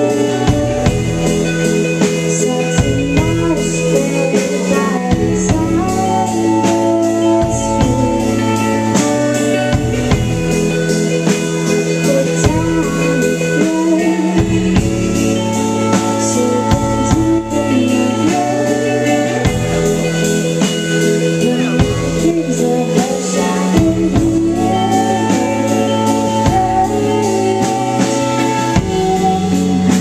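A band playing live: a woman singing over a Hammond keyboard, with a drum kit keeping a steady beat under sustained bass notes.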